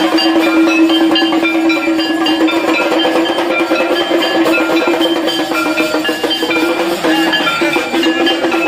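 Steel plates and vessels beaten by hand as devotional percussion, a busy clatter of short metallic ringing notes over a steady held tone.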